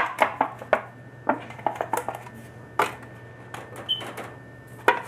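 Irregular sharp knocks and clinks of a metal heat-shield plate being handled and set in place behind the copper pipe, to keep the torch from burning the wood.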